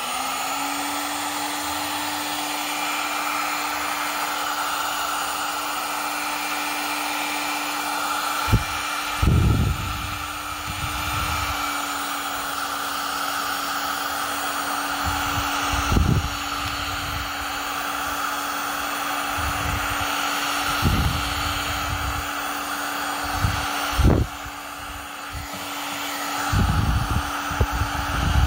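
Electric heat gun starting up and then blowing steadily, its fan motor giving a constant hum, aimed into a cemented PVC pipe stub to soften it. A few low knocks from handling the pipe come now and then.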